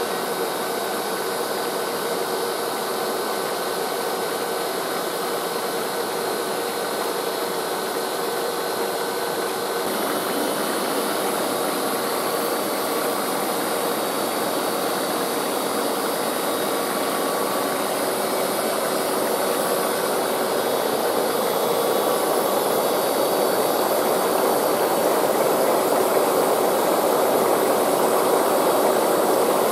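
Water rushing and splashing in a shallow sheet across a textured water-feature surface, a steady hiss that grows a little louder about ten seconds in and again near the end, with a faint steady hum underneath.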